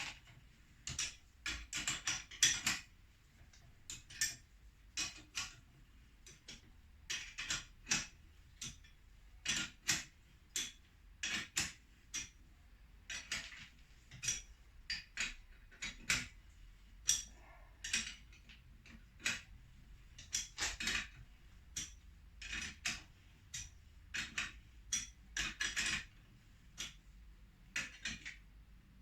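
Metal tools clinking and clicking against steel motorcycle shock parts during hands-on work, in irregular clusters of sharp taps with short pauses between them.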